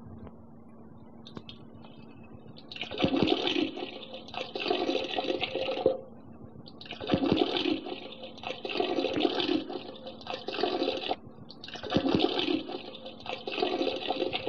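A rushing, watery noise effect that comes in three similar bursts of about three seconds each, over a steady low hum.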